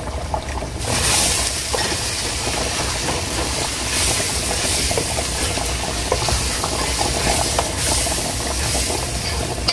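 Ground beef sizzling and hissing in a stainless steel pot as tomato sauce hits the hot meat and a wooden spoon stirs it, with light scrapes of the spoon against the pot. The hiss grows louder about a second in and swells a few times.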